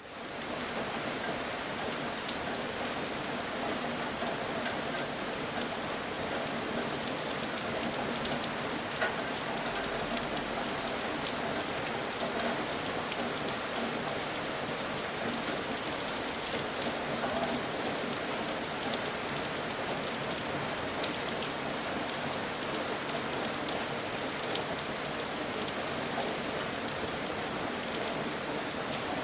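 Steady rain falling and pattering on surfaces, a dense even hiss with fine drop ticks, fading in over the first half second.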